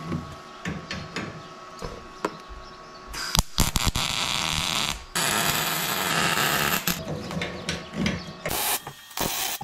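Welder tacking steel suspension tabs: two runs of steady crackling hiss, each about two seconds long, starting a little past three seconds in and again around five seconds. Light metal taps and clanks come before and after.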